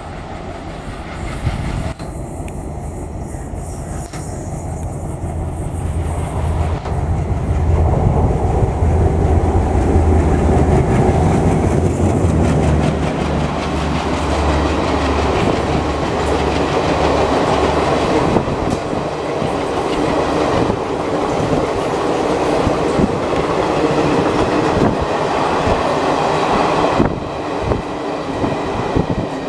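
WDM-3A ALCO diesel locomotive passing under power. Its deep engine exhaust drone builds as it approaches and passes. It then gives way to the rhythmic clickety-clack of the coaches' wheels over rail joints, which fades near the end.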